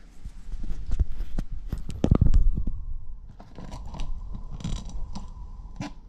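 Close handling noise: scattered clicks and rustles of a plastic zip tie being picked up and handled, with low rumbling bumps from a GoPro camera held in the mouth, loudest about two seconds in.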